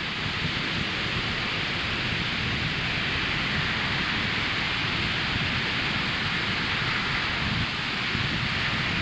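Ocean surf breaking and washing up the beach: a continuous hiss of foam over a low rumble, swelling slightly in the middle.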